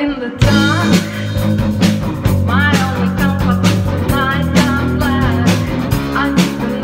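A woman singing into a microphone over rock music with a steady drum beat.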